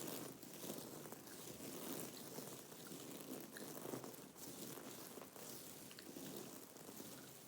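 Close-miked gum chewing: a continuous, crunchy chewing texture with scattered small clicks.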